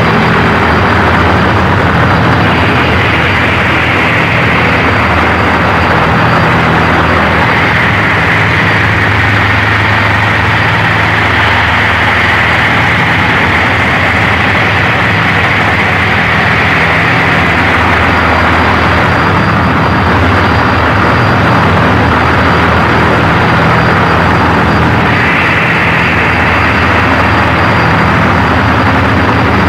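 Power electronics noise from a cassette album: a loud, dense wall of noise over a low droning hum. A harsher hissing band swells in a few seconds in, drops away about two-thirds through and returns near the end, with a thin steady high whine throughout.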